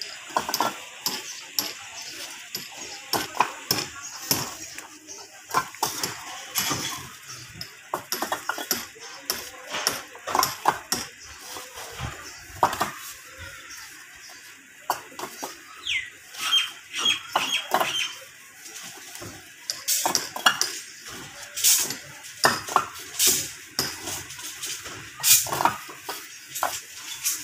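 Fired clay bricks clinking and knocking against each other as they are lifted from a donkey's pannier and stacked by hand: irregular sharp clacks, often several in quick succession.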